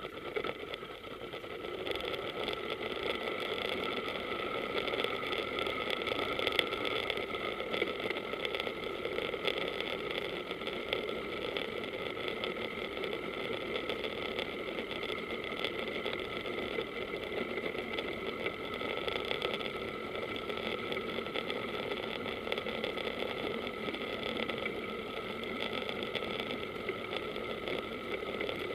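Small boat's engine running steadily at low speed, one even hum that steps up slightly about two seconds in.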